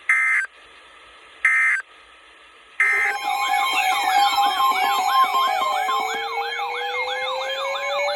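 Electronic alert tones before a weather warning: three short beeping bursts about a second and a half apart. Then several electronic sirens sound at once, a fast yelping wail over a slow rising tone.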